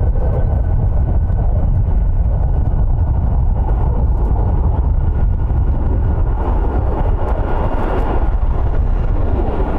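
KC-135R Stratotanker's four CFM56 (F108) turbofans at low power during its landing rollout: a steady heavy rumble with a thin high whine that slowly falls in pitch, the engine noise growing louder near the end as the jet comes closer.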